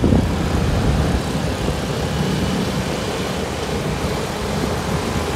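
Steady road traffic noise from motorcycles and cars, heard from a vehicle moving with the traffic: engine hum and tyre noise with no distinct events.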